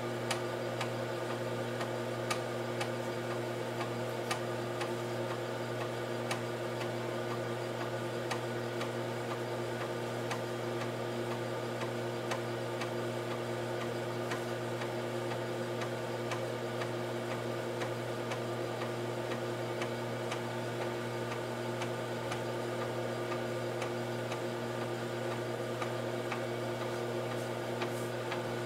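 Heathkit H-47 8-inch floppy drive formatting a disk: the head seeks across the tracks in faint, scattered ticks over a steady mechanical hum. This is the second pass of seeking in the format, which the owner guesses is a head switch to the other side or a verify pass.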